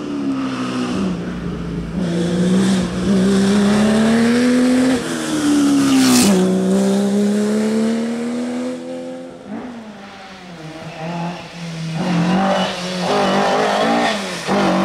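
Rally car engines at full throttle on a night special stage. One car's revs climb and drop through the gears, with a sharp crack about six seconds in, and fade away around ten seconds. Then the next car comes up loud near the end.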